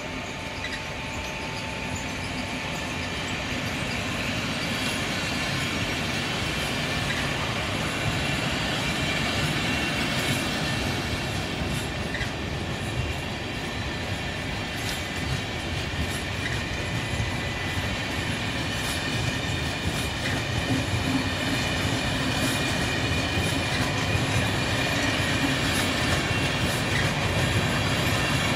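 A long train of passenger coaches rolling past on the station tracks, wheels clicking over the rail joints with a steady high-pitched wheel squeal, growing louder over the first several seconds.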